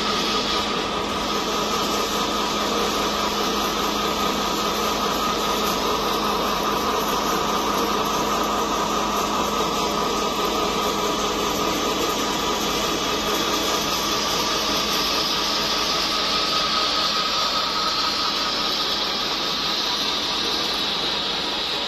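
Small feed pellet mill running steadily while pressing out green feed pellets, a constant mechanical drone with a steady high hum.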